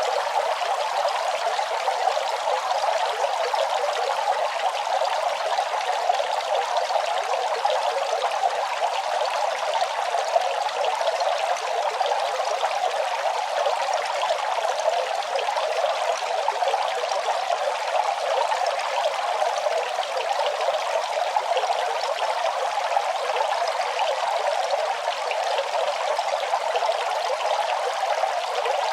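Running water flowing steadily and evenly, without pauses.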